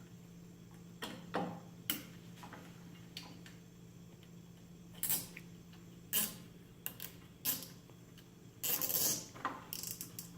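Irregular clicks, knocks and short scraping rasps of hands working with small hardware, the longest rasp about nine seconds in, over a steady low hum.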